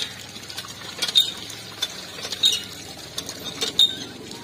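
Sharp metallic clinks ringing off a large aluminium cooking pot, about one every second and a quarter, as the pot of cut fish pieces is handled at its rim. Under them, a steady hiss of water pouring from a pipe into a pot.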